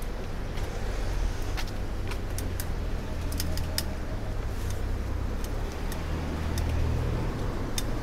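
Steady low rumble of wind and road noise on a moving bicycle, with scattered, irregular sharp clicks and light rattling.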